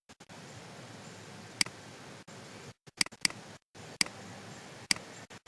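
Computer mouse button clicking: five sharp clicks, two of them in quick succession about three seconds in, over a faint steady hiss.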